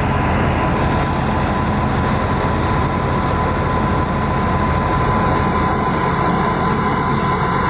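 Tractor-driven thresher running steadily under power from the tractor's drive shaft, a dense mechanical noise with a low engine hum and a constant whine.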